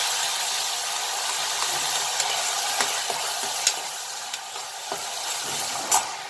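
Tomato frying in a hot tadka of oil and ghee with cumin, garlic, red chillies and curry leaves: a steady sizzle that slowly dies down as the tomato cools the fat. A spatula stirs it, clicking against the pan a few times.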